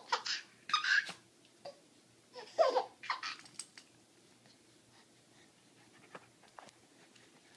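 Baby laughing in two short bouts, one at the start and another between about two and a half and four seconds in; after that only faint, scattered taps.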